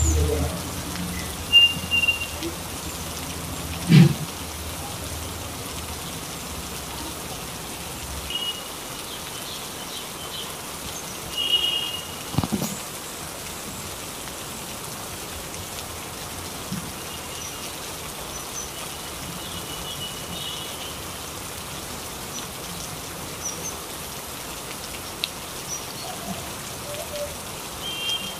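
Steady rain falling. A few sharp knocks cut through it, the loudest about four seconds in, and short high chirps come now and then.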